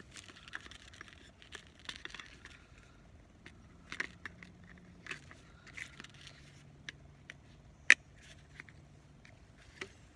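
Gear being handled and packed: scattered rustling, scraping and small clicks, with one sharp click about eight seconds in, the loudest.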